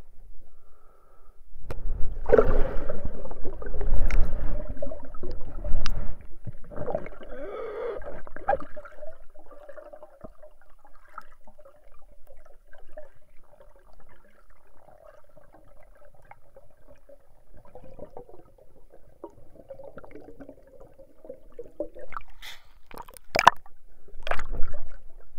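Underwater sound picked up by a camera in a waterproof housing: muffled water churning and gurgling as a swimmer dives, loudest in the first several seconds. A faint steady hum follows for most of the middle, and a few sharp knocks come near the end.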